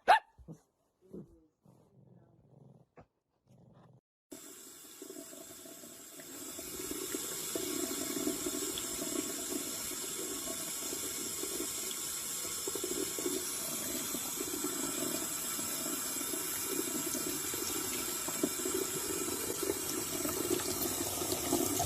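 Water running steadily, like a tap, starting about four seconds in, growing louder a couple of seconds later, after a few faint short sounds.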